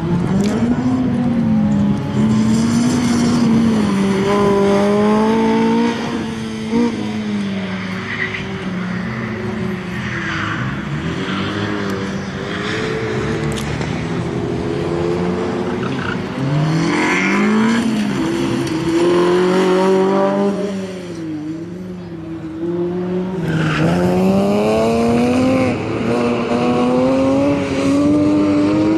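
Lotus Elise's swapped-in Honda K20A four-cylinder engine running hard, its note climbing under acceleration and dropping back again and again through gear changes and braking. Tyres squeal at times through the corners.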